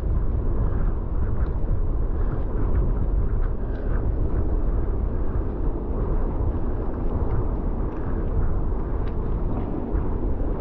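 Wind buffeting a chest-mounted action camera's microphone: a steady, gusty low rumble.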